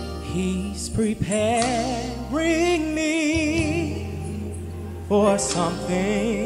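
Male gospel vocalist singing solo with a live band, his held notes carrying a wide vibrato over sustained low chords. Three sung phrases come in turn, the last entering louder about five seconds in.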